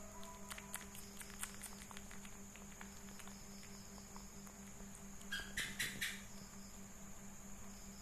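Faint small clicks and smacks from an otter pup grooming its face and paws, over a steady low hum. About five and a half seconds in comes a short cluster of high chirps.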